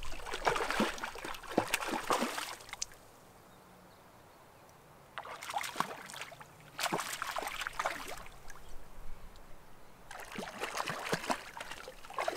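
A hooked trout thrashing and splashing at the water's surface as it is played in close to shore. The splashing comes in three bouts of a few seconds each, with a short lull after the first.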